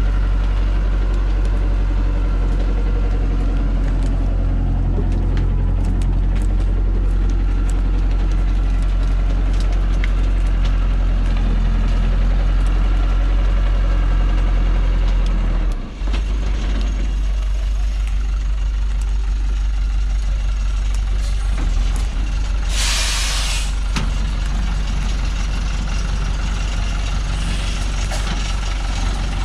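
Diesel engine of a heavily loaded log truck running steadily as it works up a muddy slope with its wheels in deep mud. About two-thirds of the way through comes a loud hiss lasting about a second.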